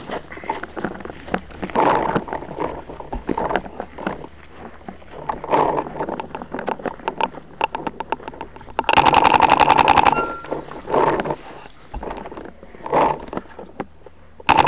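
Paintball marker firing a rapid string of shots, about twenty in a second, about nine seconds in, after a few scattered single pops.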